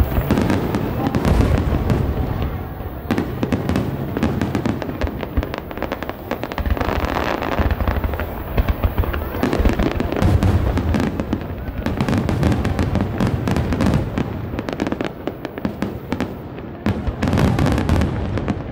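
Aerial fireworks going off in a dense, continuous barrage: repeated deep booms under rapid crackling.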